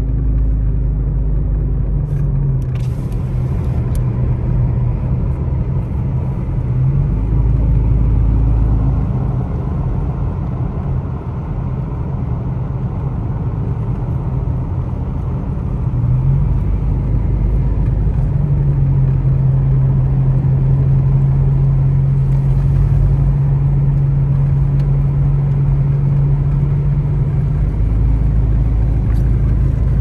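Car engine and road noise heard from inside the cabin while driving, a steady low rumble. The engine hum rises and levels off a few times, at about 2, 7 and 16 seconds in.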